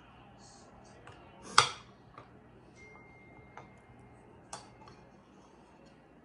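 Metal spoon clinking and knocking against a ceramic soup bowl several times while scooping noodles, one knock much louder than the rest about a second and a half in.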